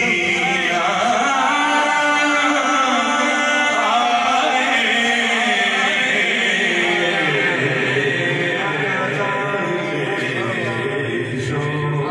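A man singing a naat, an Urdu devotional poem, solo and unaccompanied into a microphone, in long held notes with ornamented turns.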